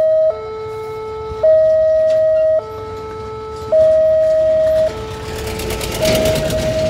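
Railway level crossing warning alarm sounding, a steady two-tone signal switching between a higher and a lower tone about every second, warning that the crossing is closed for a train. Near the end a truck passes close by, and its engine noise rises under the alarm.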